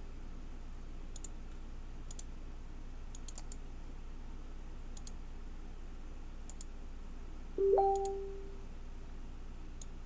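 Computer mouse button clicks, single and in quick pairs, every second or so over a steady low hum. About three-quarters of the way through comes one short, louder hummed tone, the loudest sound.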